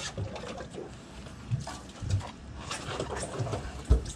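Deck noise aboard a small fishing boat at sea: scattered small clicks and knocks, and a few low thumps, over a light steady hiss of wind and water.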